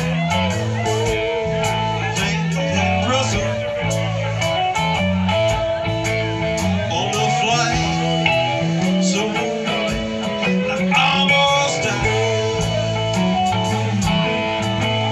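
Live rock band playing: electric guitars and an acoustic guitar over a stepping bass line, with drums keeping a steady cymbal beat.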